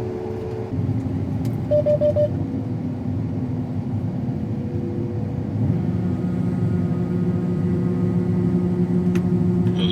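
Combine harvester engine running steadily, heard from the cab as a low rumble, with four quick electronic beeps about two seconds in. A little past halfway the engine's tone steps up and stays higher.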